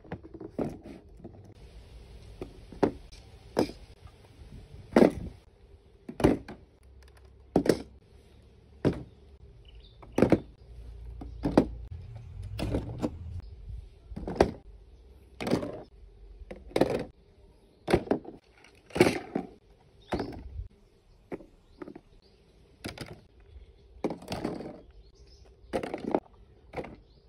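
Plastic toy guns and boxed toys being set down one after another on a hard surface: a series of separate knocks, roughly one a second, over a faint steady hum.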